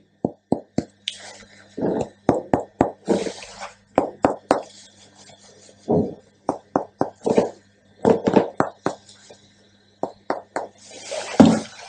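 Chest percussion: a finger striking a middle finger laid flat on the chest wall, giving runs of short, dull taps, about three to four a second, with brief pauses between runs. A short louder hiss comes near the end.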